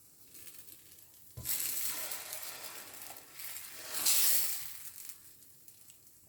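Dosa batter sizzling as it goes onto a hot griddle: a sudden hiss with a light knock about a second and a half in, dying away, then a second louder swell of sizzling around four seconds in that fades.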